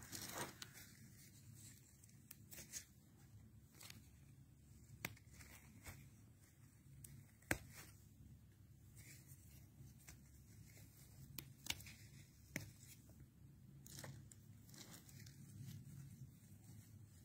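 Quiet crinkling of plastic ground sheeting and about a dozen scattered sharp clicks and rustles, from stepping on it and handling potted plants, over a steady low hum.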